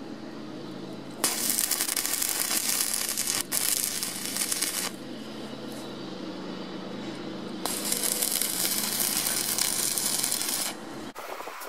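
Stick-welding arc crackling as a covered electrode tack-welds a steel bracket to a steel plate, in two runs of about three to four seconds each: one starting about a second in, the other about eight seconds in. A steady low hum sits underneath.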